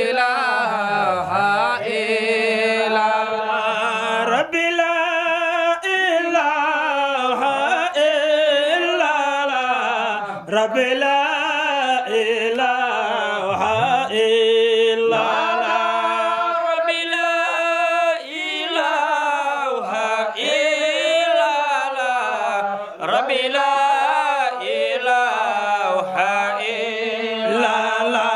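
A man chanting an Islamic devotional song unaccompanied into a microphone, drawing out long notes that waver and bend in pitch.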